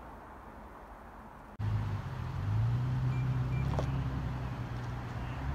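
Faint outdoor background, then, abruptly about a second and a half in, the steady low hum of a motor vehicle engine running.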